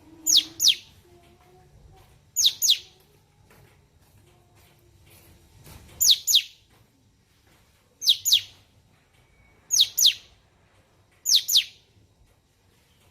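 Cucak cungkok bird calling: six calls, each a pair of quick high whistles sweeping downward, repeated about every one and a half to two seconds.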